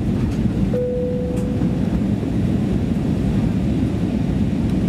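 Steady low rumble of engines and airflow heard inside the cabin of an Airbus A321-200 on approach. About a second in, a single soft tone sounds and fades away over about a second.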